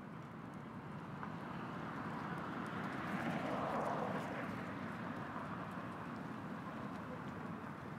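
City street noise with a vehicle passing out of sight: a smooth rushing sound swells to its loudest about four seconds in, then fades.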